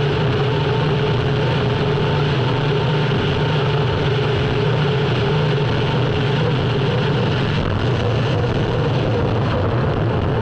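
Unlimited hydroplane's Lycoming T55 turbine engine running steadily, heard from onboard the boat. The pitch stays constant over a dense rush of noise.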